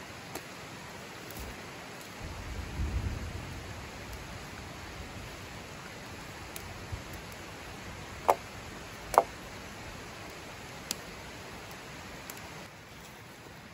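Steady hiss of rain, with a low rumble about two to three seconds in and two sharp taps, under a second apart, past the middle.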